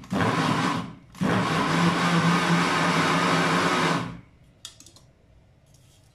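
Small electric food chopper pulsed to regrind wheat flour that came out a little coarse. A short burst is followed by a longer run of about three seconds, and the motor stops about four seconds in.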